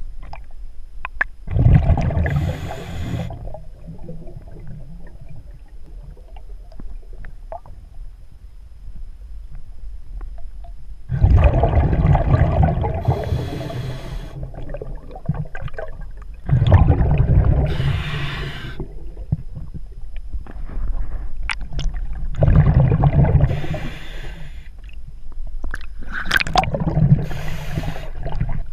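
Scuba diver breathing through a regulator, heard underwater: five bubbly, gurgling exhalations a few seconds apart, with a long pause after the first, the exhaust bubbles rushing past the camera.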